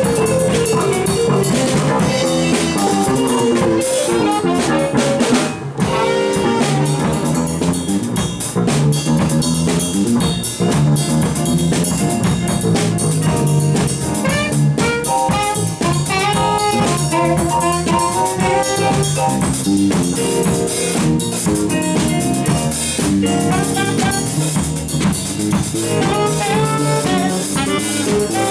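A small live band plays a funk groove: a drum kit with cymbals and rimshots, electric guitar, and saxophone playing melodic lines.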